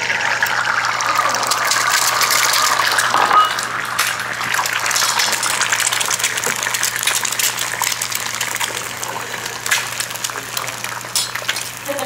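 Two eggs frying in grapeseed oil in a hot cast iron skillet: a loud sizzle as they hit the oil, easing after about three and a half seconds into a steady sizzle with small crackling pops.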